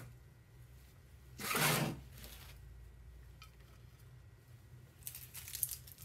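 Hands digging into loose potting soil and pressing a paperwhite bulb into a terracotta pot: one short rustling scrape about one and a half seconds in, then a run of small crackling rustles near the end.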